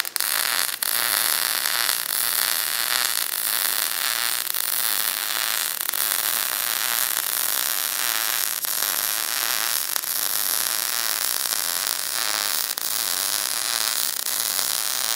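Wire-feed (MIG) welding arc crackling and hissing steadily as a bead is run along a steel plate, with a brief break in the arc just under a second in.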